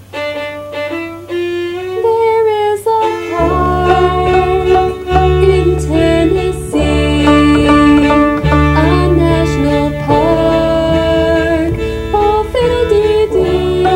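Violin playing the opening of a simple beginner song slowly, held notes on F sharp and D, over a recorded music accompaniment; a low bass part comes in about three seconds in.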